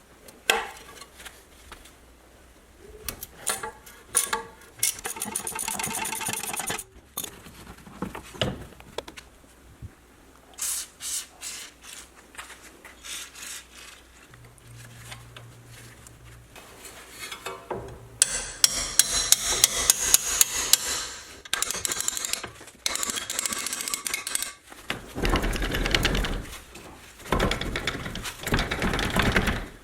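Hand tools working on a car's front suspension: scraping, clicks and metal knocks. About halfway through comes a run of sharp, evenly spaced hits, about three a second.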